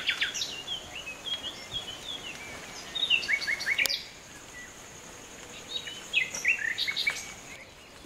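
Birds chirping in short clusters of quick rising and falling notes, about three bursts, with one sharp click about four seconds in and a faint steady high whine underneath in the second half.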